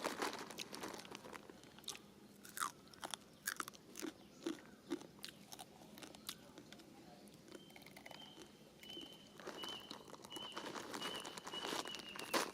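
A monkey chewing and crunching food, with irregular sharp crackles of bites. In the second half, a run of short high peeps repeats about twice a second.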